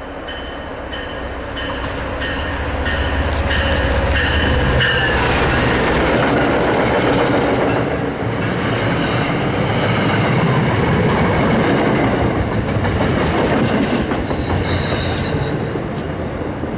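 MBTA commuter rail train, a diesel locomotive with bilevel coaches, passing at speed. The deep engine rumble builds as the locomotive goes by around four seconds in, with a ringing tone repeating about twice a second. Then the coaches' wheel and rail clatter runs for about ten seconds and fades near the end.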